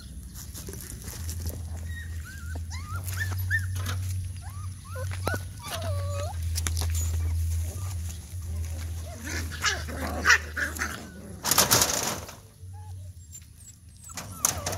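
Puppies whimpering: a run of short, high-pitched calls that bend up and down, over a steady low drone. Near the end a loud rush of noise cuts in briefly.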